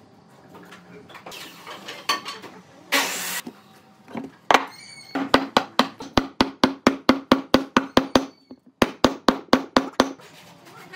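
Rapid hammering, about five blows a second for some five seconds with one short break, each blow a sharp knock on wood. Before it, two short scraping noises.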